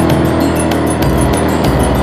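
Background music with a steady beat and held bass notes that change twice.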